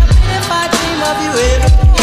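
Background pop/R&B music with sung vocals, a heavy bass and a steady drum beat.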